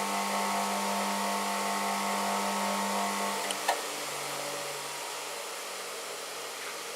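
Bench grinder motor running with a steady hum, then a short click about three and a half seconds in, after which the hum drops lower in pitch and level as the grinder starts to spin down.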